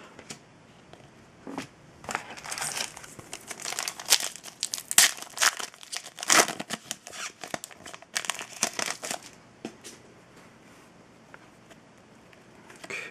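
A trading card pack wrapper being torn open and crinkled in the hands: a dense run of crackling rustles that stops about three quarters of the way through.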